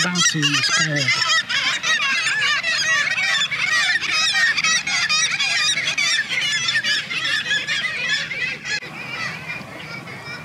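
A loud, dense chorus of many seabirds calling over one another, thinning out near the end.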